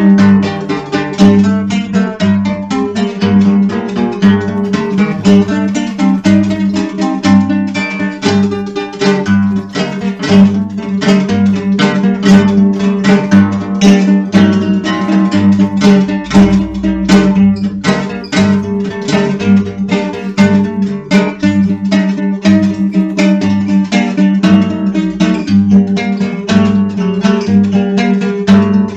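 Dark folk music: plucked acoustic guitar over a sustained low drone, with a slow pulse about once a second in the bass.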